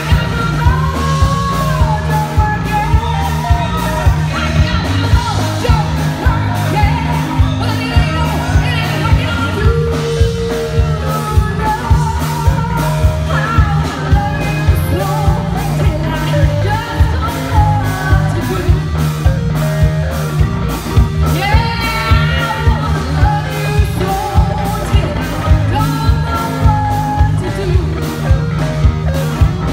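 Live rock band playing: a woman sings lead over electric guitars, keyboard and a drum kit keeping a steady beat.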